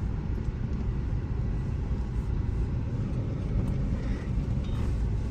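Steady road rumble and engine noise inside a moving car's cabin, heavy in the low end, with faint brief sounds from the street outside.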